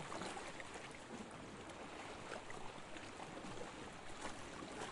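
Faint sea ambience: a steady wash of water with no distinct swells.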